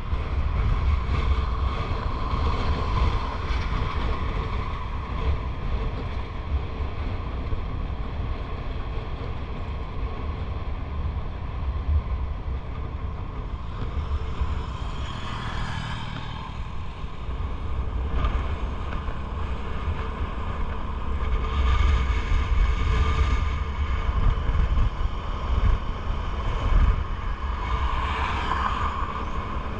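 Motorcycle riding along a highway: wind rushing over the microphone over the steady running of the engine, with louder swells a few times as oncoming vehicles pass, the last near the end.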